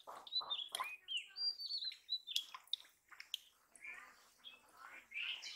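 Birds chirping in short calls that slide up and down in pitch, over wet squelching from a hand working in a muddy, water-filled hole during the first second.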